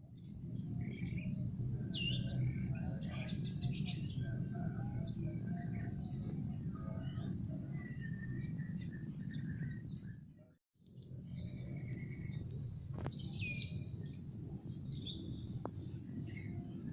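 Insects giving a steady, finely pulsing high buzz, with scattered short bird chirps over a constant low rumble. The sound breaks off briefly about ten and a half seconds in, then resumes.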